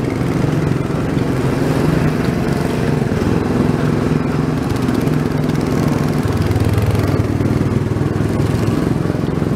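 Small gasoline engine of a Tomorrowland Speedway go-kart-style car running steadily as the car drives around the track.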